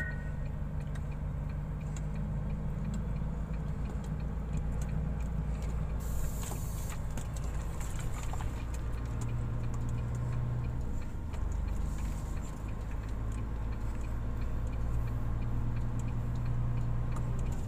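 Truck's diesel engine heard from inside the cab, running at low speed, its note shifting up and down a few times, with a brief hiss about six seconds in.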